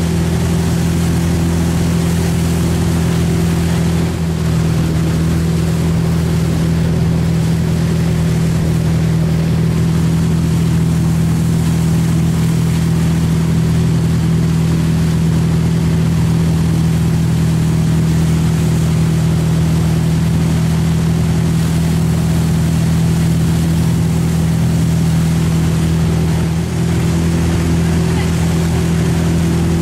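Tow boat's engine running at a steady speed, a constant low drone with several steady tones, over the rush of the wake water.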